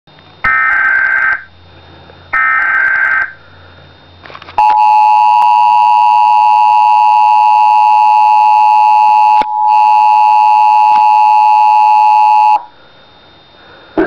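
Emergency Alert System alert on a television. Two short data bursts of the SAME header come first. Then the steady two-tone EAS attention signal sounds for about eight seconds, with a brief break about halfway. It signals an incoming child abduction emergency (Amber Alert).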